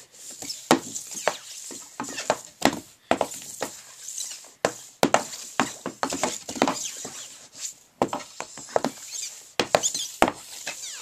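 Hockey stick blade and rubber puck clacking and sliding on a plastic shooting pad as the puck is stickhandled back and forth: irregular sharp knocks, several a second.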